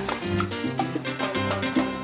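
Salsa band playing: a syncopated bass line under congas and a horn section with trombones, at a steady dance beat.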